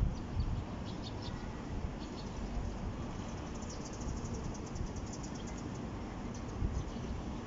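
Wind rumbling on a phone microphone outdoors, with scattered high chirps and, about halfway through, a quick run of rapid high chirps lasting about two seconds.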